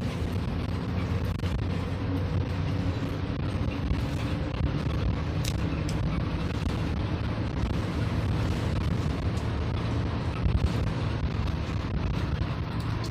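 A vehicle on the road: a steady, low engine and road rumble.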